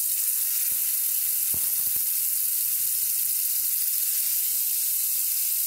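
Marinated chicken pieces sizzling in hot refined oil in a frying pan as they are laid in: a steady hiss full of fine crackles, with a few sharper pops about one and a half to two seconds in.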